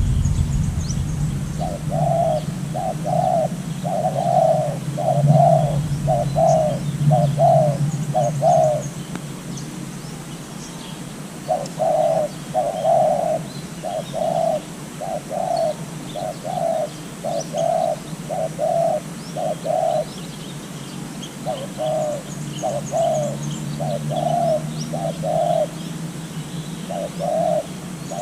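A caged decoy dove cooing in long runs of short, evenly spaced coos, with pauses of a few seconds between runs. Small birds chirp faintly in the background.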